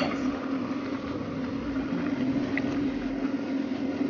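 A pot of dried taro leaves in water simmering on a gas stove: a steady bubbling hiss over a constant low hum.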